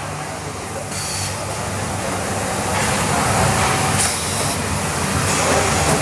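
Biesse Rover 23 CNC machining center running, a steady low mechanical hum under a hissing noise that swells and eases every second or two.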